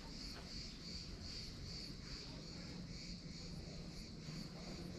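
Insects chirping outdoors: a high, evenly pulsed chirp repeating about two to three times a second, over a low steady rumble.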